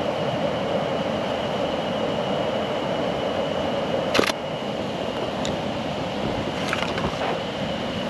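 Steady rush of a waterfall, with one sharp shutter release of a Hasselblad medium-format camera about four seconds in and a few fainter clicks near seven seconds.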